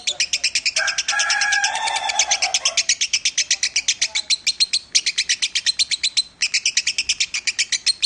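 Lovebird singing a long, fast, unbroken chatter of short high chirps, pausing for an instant twice near the middle. About a second in, a lower, smoother pitched sound runs beneath the chatter for some two seconds.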